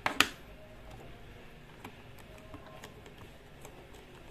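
Two sharp clicks near the start, then light scattered ticks: a plastic-cased W3230 thermostat module being handled while a wire is fitted into its screw terminal block with a small screwdriver.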